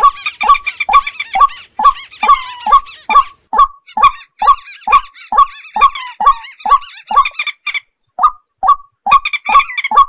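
Bird-lure recording of rails calling together (white-breasted waterhen, common moorhen and a crake): a run of short falling calls, about two or three a second, with higher chattering over them. The calls thin out into a brief gap about eight seconds in, then start again.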